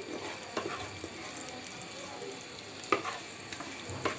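Sliced onions sizzling in mustard oil in a non-stick frying pan while a wooden spatula stirs them, with a few sharp knocks of the spatula against the pan, the loudest about three seconds in.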